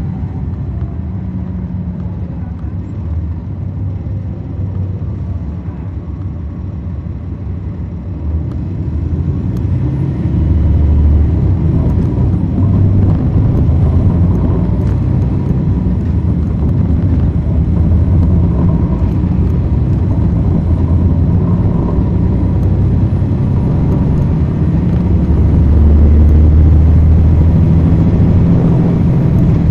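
Cummins ISL9 diesel engine of a 2010 NABI 40-SFW transit bus, heard from the back of the passenger cabin. It runs steadily with a deep low sound, grows louder about nine seconds in and stays loud.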